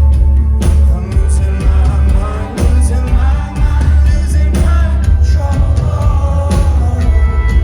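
Live rock band playing a song, a lead vocalist singing over heavy bass and drum hits.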